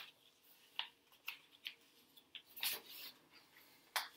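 Sheets of paper being handled: a string of short, light rustles and crinkles, with a longer rustle a little past halfway and a sharp one near the end.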